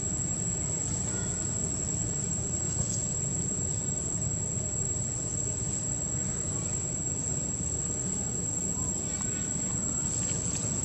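Insects droning in one steady high-pitched tone over a low continuous rumble of outdoor ambience.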